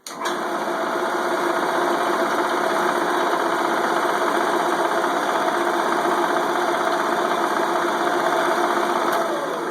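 Shopsmith jigsaw switched on and running at speed, a steady mechanical hum and rattle from its motor, blade drive and built-in air pump. Near the end it is switched off and winds down, the pitch falling.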